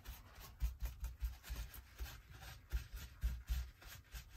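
Paper tissue rubbing and dabbing over a painted glass bottle, wiping off wet brown acrylic paint before it dries. It comes as a run of short, soft strokes, several a second, with dull bumps as the bottle is handled.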